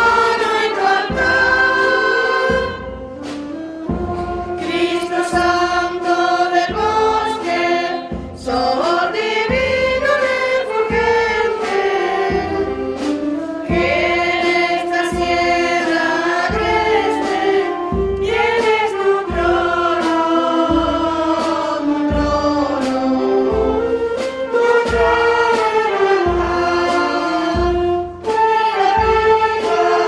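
A choir singing a religious hymn to musical accompaniment, with a regular low beat underneath.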